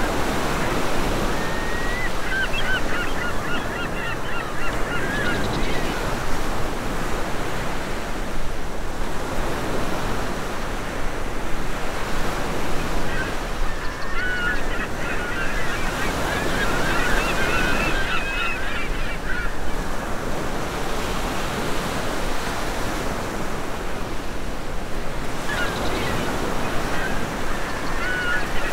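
Sea waves washing steadily, with birds calling in three bouts of wavering cries: near the start, around the middle, and near the end.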